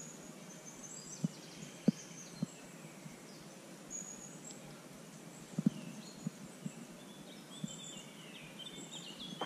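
Small birds chirping and singing in the background, with a scattering of short, sharp low taps or knocks, the loudest about two seconds in and a double one a little past halfway.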